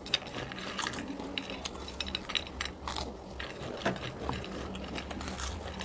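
Two people chewing and crunching crisp snacks (potato chips and Kurkure sticks) fast, with many irregular sharp crackles. A steady low hum runs underneath.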